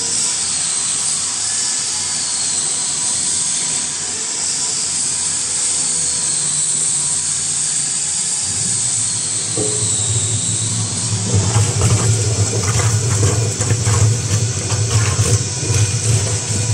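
Vacuum emulsifier homogenizer running with a steady rushing hiss. About halfway through, a low motor hum comes in, and irregular knocking and sloshing follow as water is stirred in the stainless mixing tank.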